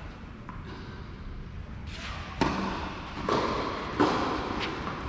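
Tennis ball knocks on a clay court: a sharp hit about two and a half seconds in, then more under a second apart, with a lighter tap near the end, each followed by a short echo under the covered hall's roof.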